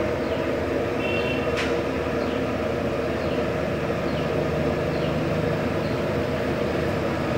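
Steady, loud, machine-like noise with faint short chirps recurring about once a second above it.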